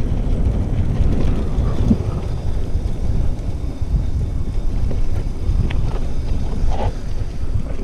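Wind buffeting the action camera's microphone while a mountain bike rolls along a dirt singletrack, a steady low rumble of wind and tyres, with a few light rattles from the bike near the end.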